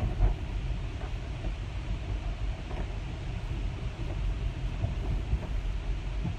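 Inside a moving car's cabin on a wet road: a steady low rumble from the car and its tyres, with the windshield wipers running.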